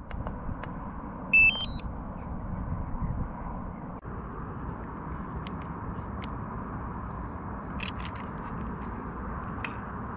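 Wind buffeting the microphone, with a short rising three-step electronic beep about a second and a half in from a DJI drone remote controller being switched on. A few sharp clicks near the end as the folding arms of a DJI Mini 2 drone are snapped open.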